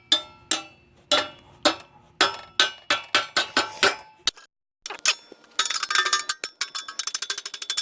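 Repeated ringing metal-on-metal strikes, about two a second, as a part is worked off the scooter's steel frame. After a brief cut to silence, a much faster run of ringing metal strikes follows.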